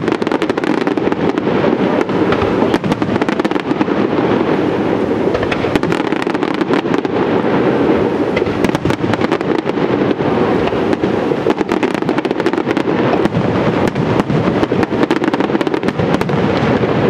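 Fireworks display with aerial shells bursting, a dense, unbroken run of bangs and crackles over a continuous rumble.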